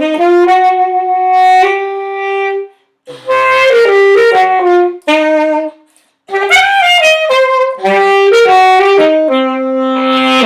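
Alto saxophone playing a short melody in three phrases with held notes and a few bends, the throat growl effect worked in to give some notes a rough, buzzing edge.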